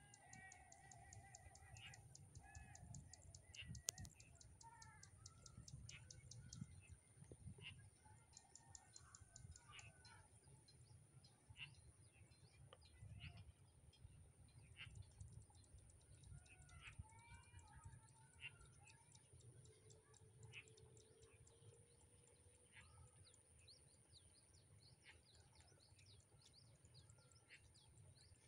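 Faint open-country ambience of small birds chirping, many short scattered calls, over a steady high-pitched insect drone with bouts of fast high ticking.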